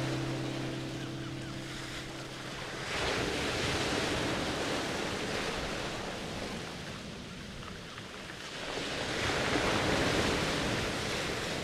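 Rushing water like waves washing in, swelling twice about six seconds apart. A low held music note fades out about three seconds in.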